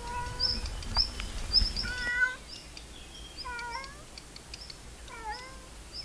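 A domestic cat meowing about four times, drawn-out meows that bend in pitch. Over it a female redstart repeats short high alarm notes about twice a second, an alarm call set off by the cat's presence near her nest.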